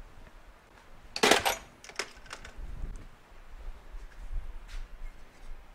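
A metal tool or part clinks sharply against a hard work surface about a second in, followed by a few lighter clicks of small hand tools and parts being handled.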